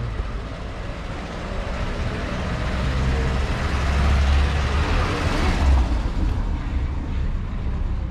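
A car driving slowly past close by on a cobbled street: its engine rumble and tyre noise grow louder to a peak about five seconds in, then fade as it moves away.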